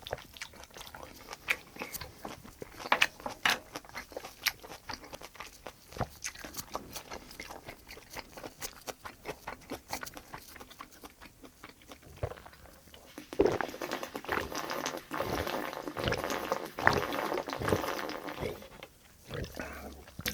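Close-miked wet chewing and lip-smacking from someone eating braised kimchi with pork. Short sharp smacks come through the first half, then the chewing grows louder and denser for several seconds from about two-thirds of the way in.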